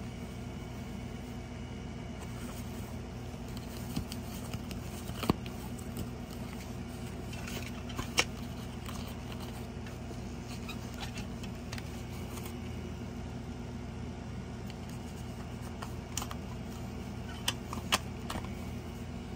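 A paper lyric insert and a clear plastic cassette case being handled, giving a few sharp clicks and taps. The loudest come about five and eight seconds in, with two close together near the end. A steady low hum runs underneath.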